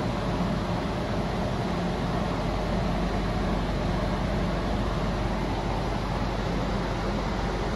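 Steady hum and hiss inside the cabin of a stationary BMW M5 Competition with the car running.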